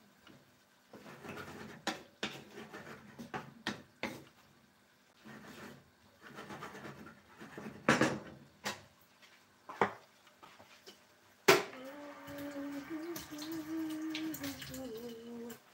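Wooden spoon stirring and scraping through squid adobo in a skillet, with scattered knocks of the spoon against the pan, the loudest about eight and eleven and a half seconds in. For the last few seconds a steady hum holds, shifting down in pitch near the end.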